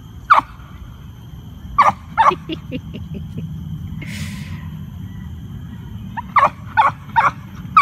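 A dog barking in short, high-pitched yips: a few single yips, then a quick run of about six, roughly four a second, near the end.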